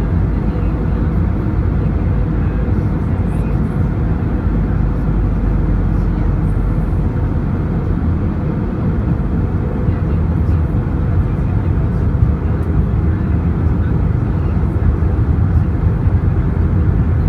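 Steady noise of an airliner's engines and the airflow, heard from inside the passenger cabin, mostly deep and unchanging in level.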